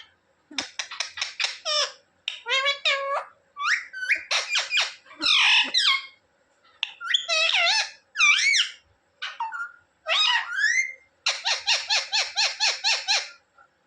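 Indian ringneck parrot squawking and chattering: bursts of rapid repeated shrill notes, about five a second, near the start and again near the end, with gliding rising-and-falling squawks in between.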